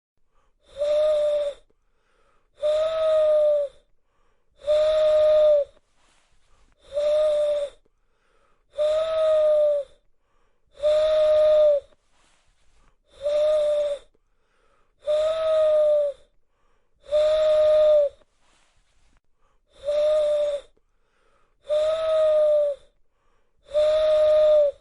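Owl calling: twelve calls, each about a second long and repeated roughly every two seconds, each a steady note with a hissy edge.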